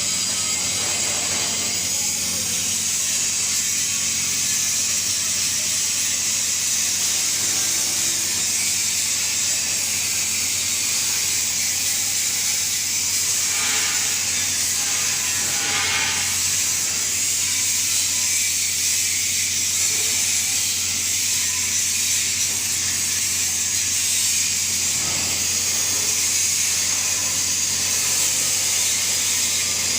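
TIG (gas tungsten arc) welding arc burning steadily: a continuous, even hiss with a low hum underneath.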